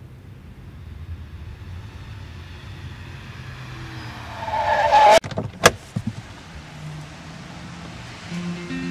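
Car sound effect: an engine running as the car drives up, a brief squeal as it comes to a stop about five seconds in, then two sharp bangs.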